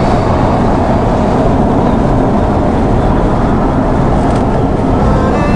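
Steady road noise inside a moving car's cabin: an even rumble of tyres and engine.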